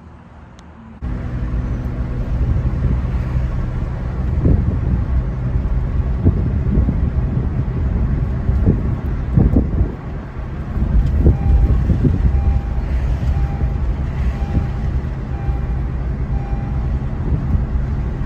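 Car cabin noise while driving: a steady low rumble of engine and tyres, with wind buffeting the microphone in irregular thumps. In the second half a faint short beep repeats about once every 0.7 seconds.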